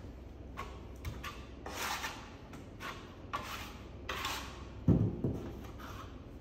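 Steel plastering trowel scraping board-finish plaster off a hawk and spreading it into a plasterboard joint: a series of short rasping scrapes, with one sharp knock about five seconds in.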